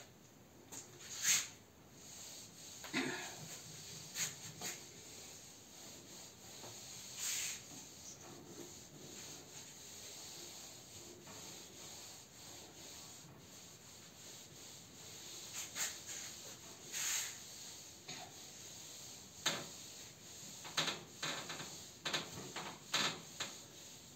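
Hand-held whiteboard eraser rubbing across a whiteboard in repeated wiping strokes, with a few short louder knocks and swipes scattered among them.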